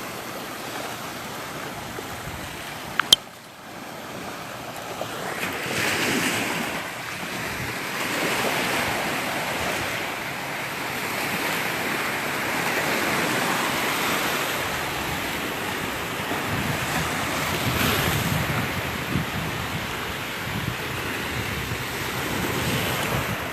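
Small Gulf of Mexico waves washing up on a sandy beach, swelling and ebbing every few seconds, with wind buffeting the microphone. A single sharp click about three seconds in.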